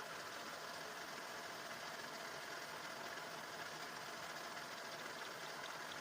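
Metal lathe running steadily while a cutter faces flat the rough side of a square 40×40 bar.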